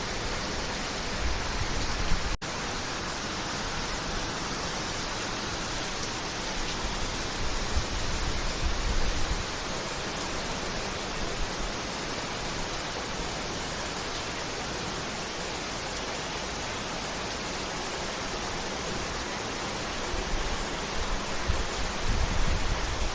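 Heavy rain pouring down in a steady, dense hiss, with a few spells of low rumble on the microphone and a brief break in the sound about two seconds in.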